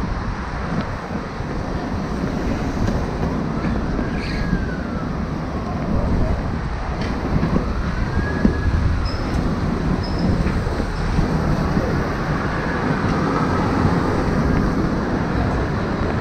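Road traffic and wind noise, steady and low, with a faint whine that rises and falls three times, a few seconds apart.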